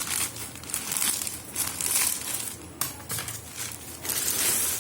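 Packaging crinkling and rustling in the hands as a parcel is unwrapped, in a quick irregular run of crackles.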